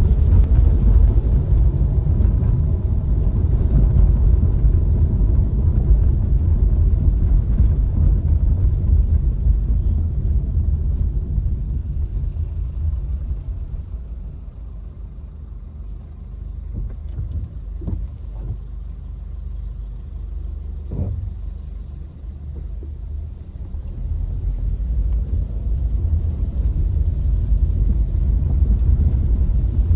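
Car driving along a city street: a steady low road and engine rumble that eases off for several seconds around the middle and then builds up again.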